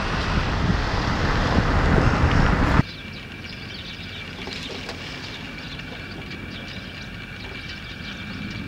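Road and wind noise from a moving car, cut off suddenly about three seconds in. After the cut comes quiet outdoor ambience with a faint steady high tone and scattered faint chirps.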